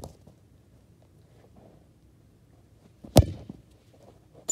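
A football kicked hard once about three seconds in, a single sharp thud, after a few faint footsteps on artificial turf. Right at the end a second sharp impact with a short high ring.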